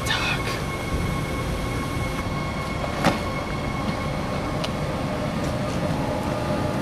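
Steady rumble of a passing train, with faint high squealing tones running through it. One sharp knock about three seconds in.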